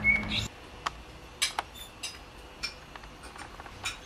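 Light, irregular clicks and clinks of cutlery and plates at a table, a handful over a few seconds. A low outdoor rumble cuts off abruptly half a second in.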